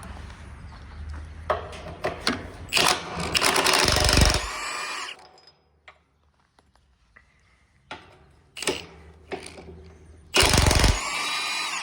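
A power tool, such as a drill or impact driver, runs in two bursts while loosening the bolts that hold down a mini skid steer's roll cage: a longer run about three seconds in and a shorter one near the end. Short knocks and clatters of tool on metal come between the runs.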